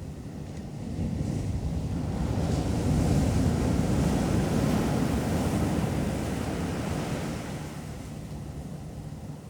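Sea waves breaking and washing up on the beach: a surge of surf that builds about a second in, is loudest mid-way and dies back near the end.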